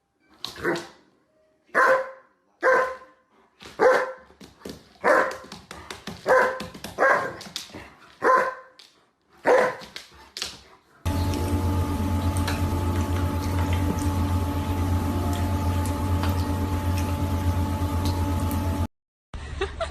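A dog barking repeatedly, about ten single barks roughly a second apart. After that comes a steady droning hum with several constant tones that lasts about eight seconds and then cuts off.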